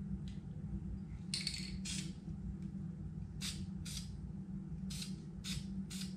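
Aerosol spray-paint can sprayed in seven short hissing bursts: two quick pairs, then a run of three about half a second apart. A steady low hum runs underneath.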